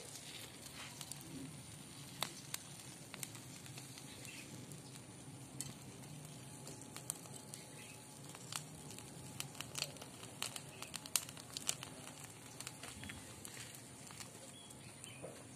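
Small wood fire crackling and hissing under a beef leg being singed, while a knife scrapes the charred hide. Irregular sharp crackles and clicks, thickest a little past the middle.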